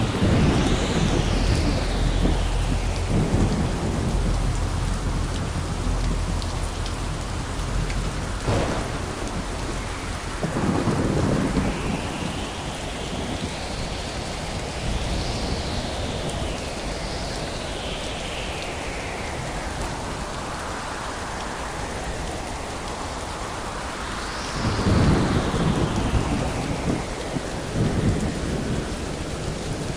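Thunderstorm: steady heavy rain with rolling thunder. Deep rumbles swell at the start, again about a third of the way through, and most loudly near the end, with a sharp crack of thunder a little over 8 seconds in.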